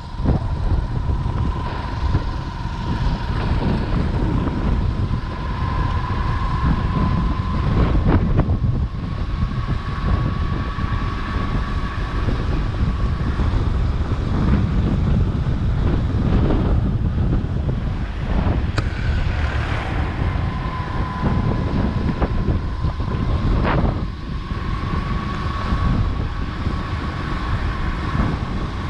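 Wind buffeting the microphone of a moving motorcycle, with the ride's rumble and a thin steady whine that fades out midway and comes back later.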